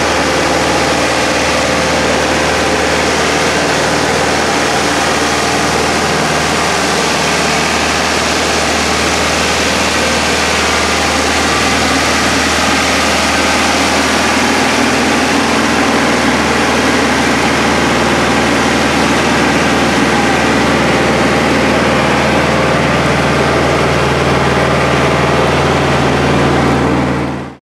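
Farm tractor engine running steadily with an even, low hum, over a constant wash of outdoor noise; the sound cuts off abruptly at the very end.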